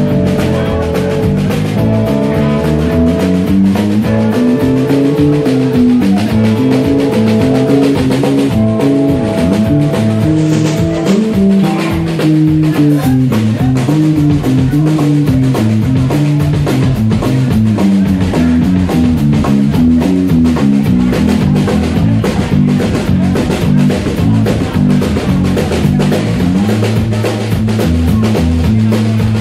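Live blues band playing an instrumental passage: electric guitar holding and bending notes over a moving electric bass line and a drum kit keeping a steady beat.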